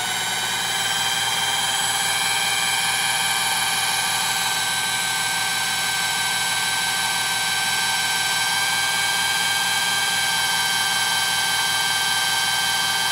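Electric drill spinning a wind generator at about 1150 rpm: a steady, loud mechanical whine made up of several high tones, rising slightly at first as the speed is brought up, then holding even.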